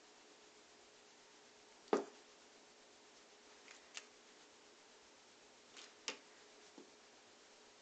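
A cat's paws thumping and tapping on a wooden surface as it leaps and swats at a wand toy: one louder thump about two seconds in, then a few lighter taps, over a faint hiss.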